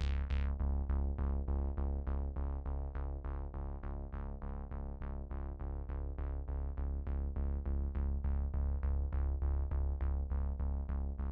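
Electronic outro music: sustained synthesizer chords pulsing evenly about four times a second.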